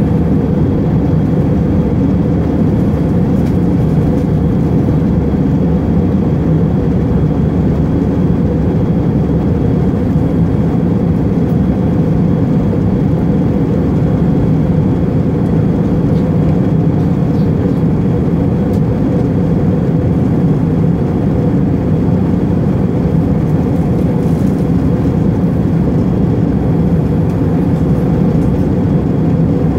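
Jet airliner cabin noise at cruising altitude: a steady low drone of engines and rushing air heard from inside the cabin.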